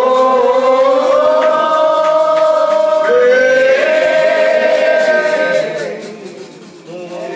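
Church devotion hymn sung slowly by a man into a microphone with the congregation joining, each word stretched into long held notes. Two long phrases, then the singing drops away briefly near the end before picking up again.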